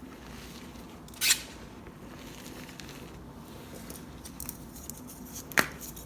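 Dyed chalk cubes crunched by hand: two sharp crunches, one about a second in and one near the end, with faint crumbling crackles between them.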